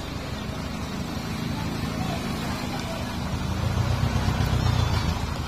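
Loaded dump truck's diesel engine running as the truck moves slowly, with a low throbbing note that grows louder about three and a half seconds in as the engine is worked harder.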